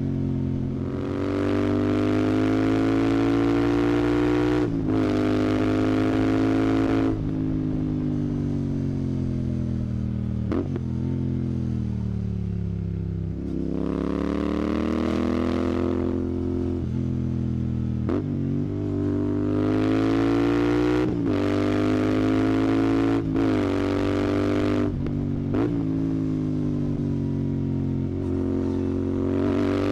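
Royal Enfield Continental GT 650's parallel-twin engine running through a Red Rooster aftermarket exhaust under way. The revs climb and drop repeatedly, with several short breaks in the note. Near the middle the revs sink for a few seconds, then climb again.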